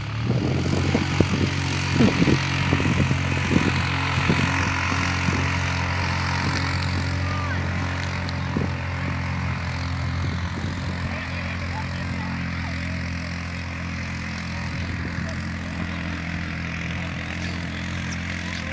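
An ATV engine held at high, steady revs as the quad churns through a mud bog pit. There is a burst of sharp knocks and splashes in the first few seconds, and the engine then slowly fades.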